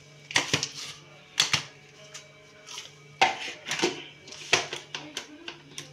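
Sharp plastic clicks and knocks, about eight of them spread irregularly through the few seconds, as a small portable mixer jar and its lid are handled and fitted together. A faint steady low hum runs underneath.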